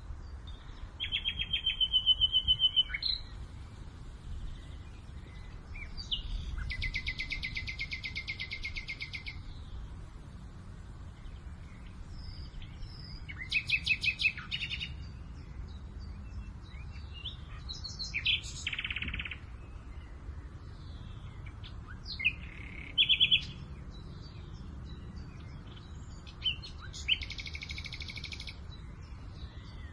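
Songbirds singing, a rapid trilled phrase every few seconds, some trills running two to three seconds. A low steady rumble of wind on the microphone sits beneath them.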